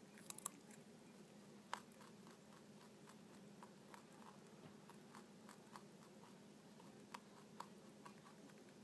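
Dwarf Hotot rabbit munching fresh vegetables and greens: faint, crisp crunches and clicks of chewing, a few sharper ones near the start and again near the end, over a low steady hum.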